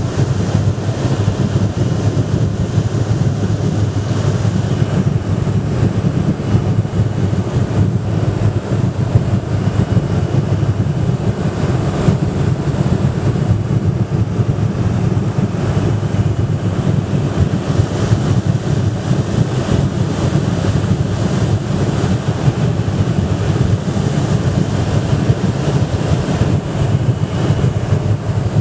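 A ski plane's engine and propeller running at a steady drone, with a faint steady high whine above it.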